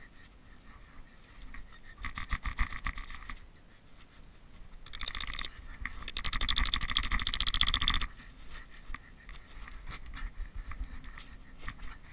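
A tent peg being driven into packed snow with a hatchet, a dense run of rapid knocks and crunches from about five to eight seconds in. A shorter, quieter run of knocks comes about two seconds in, with scraping and rustling of tent canvas around them.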